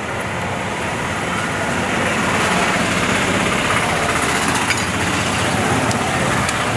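Steady street traffic noise, vehicle engines running and passing.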